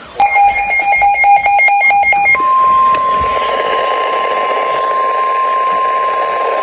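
Weather radio receiver going off: rapid electronic beeping for about two seconds, then the steady NOAA Weather Radio 1050 Hz warning alarm tone over radio hiss. The tone is the signal that a warning is about to be broadcast, here a severe thunderstorm warning.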